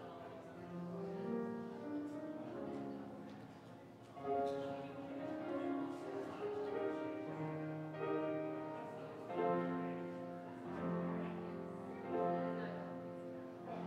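Slow instrumental music on a keyboard instrument: long held chords over a bass line that moves from note to note.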